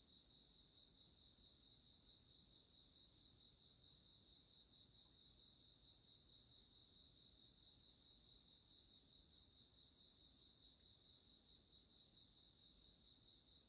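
Faint crickets chirping at night in a steady, evenly pulsing trill. A second, slightly higher trill joins briefly twice, about seven and ten seconds in.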